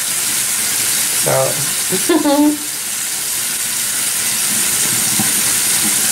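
Facial steamer running with a steady hiss.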